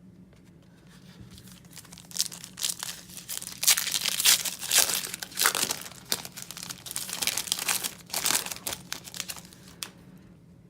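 Wrapper of a trading-card hanger pack being torn open and crinkled by hand, in irregular bursts of rustling that begin about two seconds in and die away near the end.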